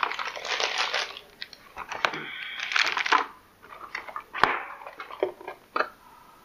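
Cardboard motherboard packaging being handled: paper and cardboard rustle and scrape in two spells as the white inner box is pulled out of the outer box, with a sharp tap of cardboard a little past the middle.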